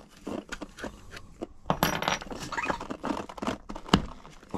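Small parts and tools clinking, clicking and rattling as an RC truck is put back together by hand, with one sharp click about four seconds in.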